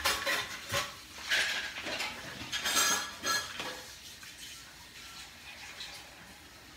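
Supplement capsules rattling and a small plastic supplement bottle clicking as pills are shaken out into a hand: a run of sharp clicks and rattles over the first three and a half seconds.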